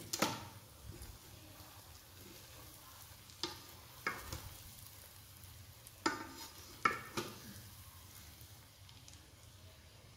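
Wooden spoon stirring and fluffing cooked rice in a rice cooker's metal inner pot: a handful of short, irregular scrapes and knocks against the pot.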